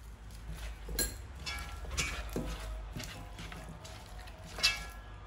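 Raw lamb chops handled in a stone-coated pan: a few light clicks and knocks of meat and bone against the pan as they are seasoned and rubbed by hand, the sharpest near the end, over a low steady hum.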